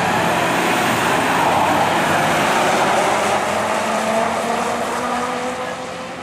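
Big-rig diesel tanker truck launching off the drag-strip start line at full throttle. Its engine and exhaust are loud at first, then fade over the last couple of seconds as it pulls away down the track.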